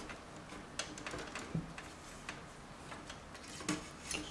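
Faint, irregular clicks and light rustling of cables being bundled and tied with short pieces of wire inside an open PC case.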